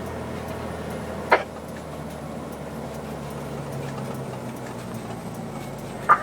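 Fire engine's engine running steadily, heard from inside the cab as a low, even drone. There are two short sharp sounds, one about a second in and one just at the end.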